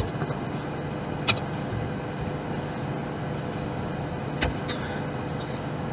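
Steady background hum and hiss, with a few isolated computer keyboard key clicks about a second in and again between four and five and a half seconds in.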